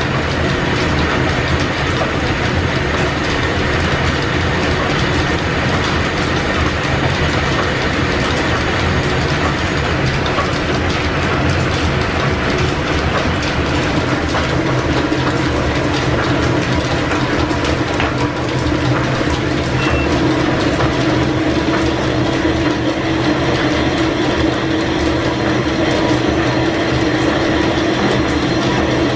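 Belt-driven machine tools of an old line-shaft machine shop running: a steady mechanical clatter of gears, belts and pulleys with a low hum underneath. In the second half a metal lathe turns a part and the hum grows stronger.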